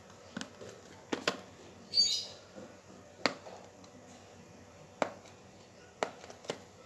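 Fingers handling a small cardboard box on a tiled floor and picking at its sealed flap, giving a scattering of sharp clicks and taps. A brief, high bird chirp about two seconds in is the loudest sound.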